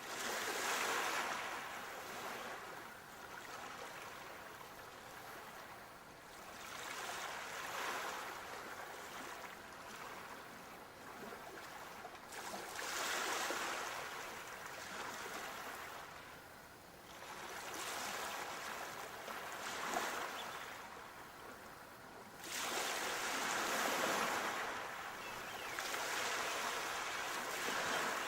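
Sea waves breaking and washing in, swelling and fading in repeated surges about every five seconds.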